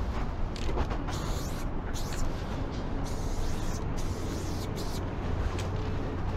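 Aerosol spray paint can hissing in several short bursts, each starting and stopping sharply, over a steady low rumble.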